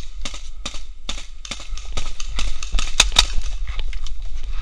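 Paintball markers firing, a string of sharp pops at irregular spacing, several a second, with a louder pair about three seconds in.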